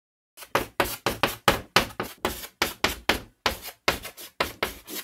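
Chalk-on-blackboard writing sound effect: a quick run of sharp, scratchy taps at about four a second, starting about half a second in and cutting off at the end.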